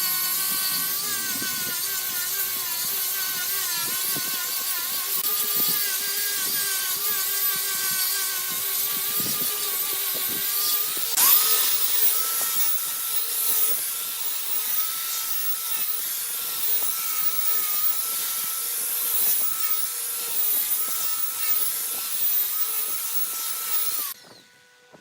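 Wood lathe running while a turning tool cuts the spinning wood, the motor's whine wavering under the load of the cut and a rough hiss of cutting over it. The sound shifts to a higher, brighter pitch about halfway through and stops abruptly near the end.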